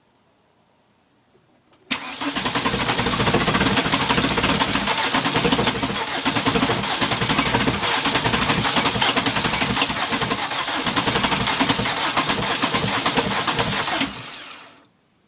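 Worn, high-mileage 1.6 litre turbo diesel engine being cranked on the starter in freezing weather. It turns over with an uneven pulsing for about twelve seconds without catching, then cuts off and winds down. This is a failed cold start, which the owner puts down to the engine lacking compression.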